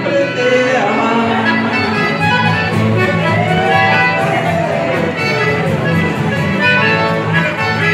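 A trio playing an instrumental passage: a melody line with sliding notes over a steady, repeating bass.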